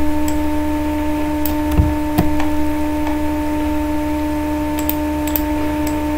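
Steady hum with a few evenly spaced overtones, over a constant low noise floor. A handful of light clicks are scattered through it, fitting computer mouse clicks while zooming and choosing a drawing tool.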